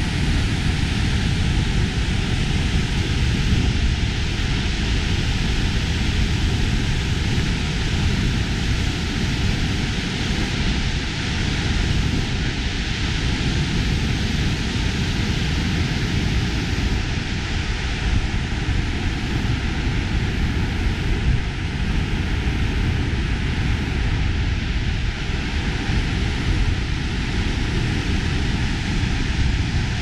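Steady, loud rushing roar of a large waterfall on the Yellowstone River, heard close up from the brink, with deep rumble and hiss and no let-up.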